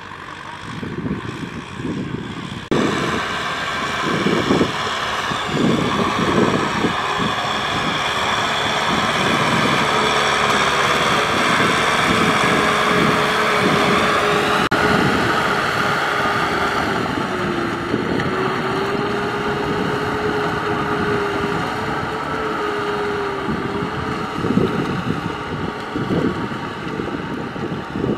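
Kubota M6040SU tractor's diesel engine running under load as it pulls a loaded trailer through mud, getting suddenly louder about three seconds in, with a steady whine that dips briefly about two-thirds through. Wind buffets the microphone throughout.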